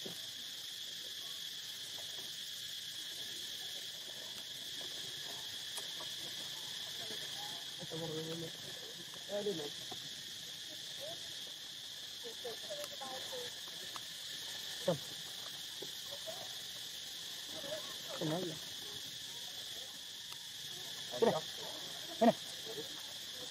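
Steady, high-pitched insect chorus that holds without a break. A few short, sharp sounds come through it, the two loudest close together near the end.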